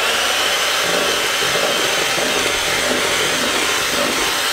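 White electric hand mixer running steadily at speed, its twin wire beaters whipping cream in a plastic bowl.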